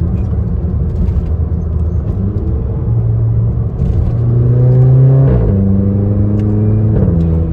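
Audi A1 with a resonator-deleted aftermarket exhaust accelerating hard: the engine note climbs, drops at an upshift about five seconds in, climbs again and drops at a second upshift near the end.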